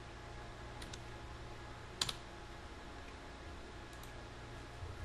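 A few isolated computer keyboard clicks: one sharp keystroke about two seconds in, with fainter clicks about a second in and near four seconds, over a faint low hum.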